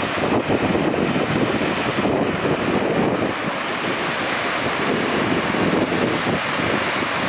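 Steady roar of rushing water, with wind buffeting the microphone.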